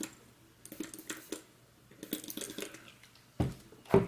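A tissue wetted with isopropyl alcohol rubbing and dabbing on a laptop processor chip to clean off old thermal paste, with small scratchy clicks in short spells. Near the end come two louder knocks as the plastic isopropyl bottle is handled.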